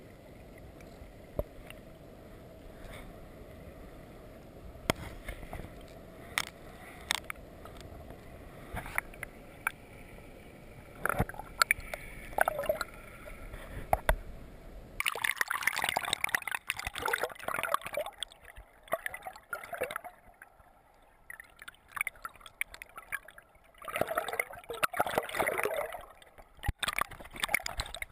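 Water heard through an underwater camera's housing: a muffled low rumble with scattered knocks and clicks. From about halfway it changes to irregular bursts of rushing, churning water that come and go.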